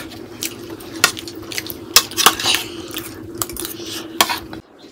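Metal spoon clinking and scraping against a ceramic plate of rice as a child eats, in several sharp, irregular clicks over a faint steady hum.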